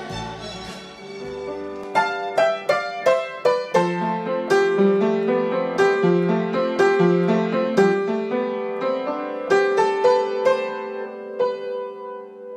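Background music: the end of a fuller tune fades out, then a solo piano melody of separately struck notes starts about two seconds in.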